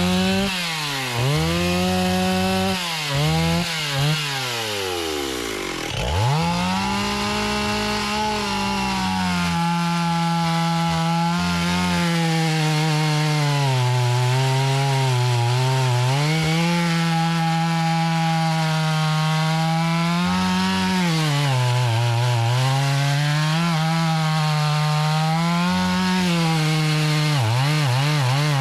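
Two-stroke chainsaw revved up and down in quick blips, dropping back about six seconds in, then held at high revs cutting into wood, its engine note sagging again and again under load and recovering.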